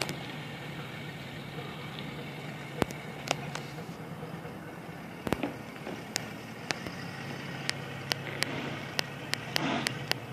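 Cabin cruiser's single inboard engine running steadily as the boat backs through a sheet of thin harbour ice about two inches thick. Sharp cracks and snaps of ice breaking against the hull sound over the engine, more often in the second half, with a rush of noise building near the end.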